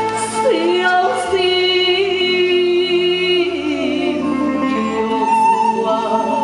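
A woman singing over instrumental accompaniment: her voice slides down into one long held note with vibrato, then falls away near the middle.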